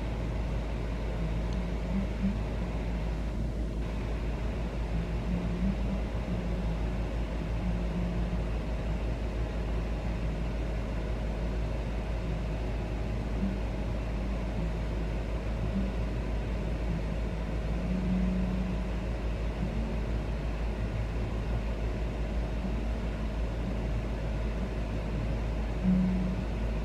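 A steady low mechanical rumble with a faint hum, unbroken, with no distinct calls or knocks in it.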